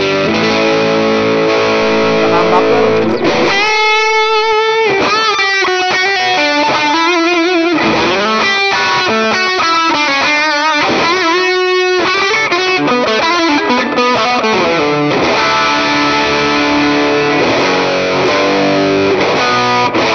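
Electric guitar played through a Valeton GP200R multi-effects pedal on a crunch overdrive patch. Chords at first, then from about three seconds in a run of single-note lead lines with wide vibrato, returning to chords for the last third.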